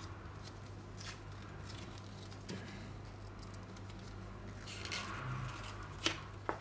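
Faint rustling of a paper envelope being handled and opened by hand, with a few small clicks and a brief rustle about five seconds in, over a low steady hum.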